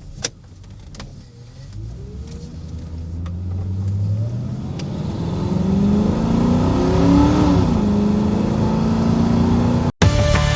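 Car engine accelerating, rising in pitch and growing louder over several seconds, then holding at a steady drone before cutting off abruptly near the end.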